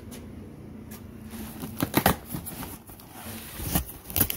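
Cardboard shipping box being opened and handled, with short sharp scrapes and knocks of cardboard and packaging, a cluster about two seconds in and more near the end.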